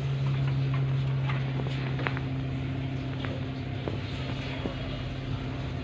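A steady low motor hum holds throughout, with a few faint sharp clicks scattered over it as a parakeet bites into a red chilli.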